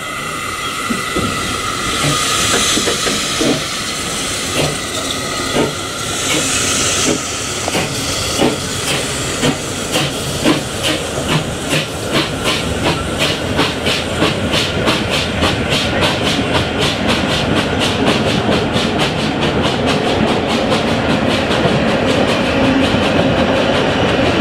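Narrow-gauge steam tank locomotive starting a train: steam hissing from the cylinders, then exhaust chuffs that come closer and closer together as it picks up speed. The coaches roll past with a clickety-clack near the end.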